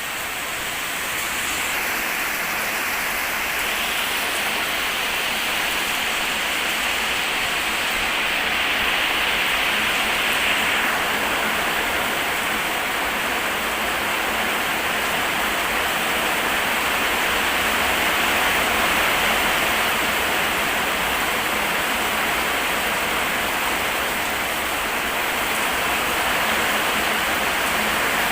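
Rain pouring down, a steady dense hiss that swells a little in the first couple of seconds, then holds on.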